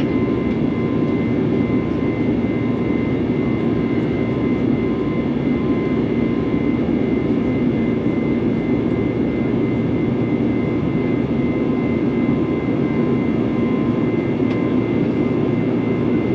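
Steady in-flight cabin noise of an Airbus A321 jetliner: a constant rush of air and engine noise, with a thin steady whine running through it.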